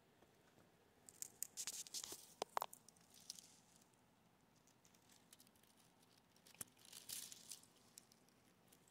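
Crinkling of plastic toy packaging as it is handled, in two short spells with a few small clicks: one starting about a second in and lasting two seconds or so, the other around seven seconds in. Otherwise near silence.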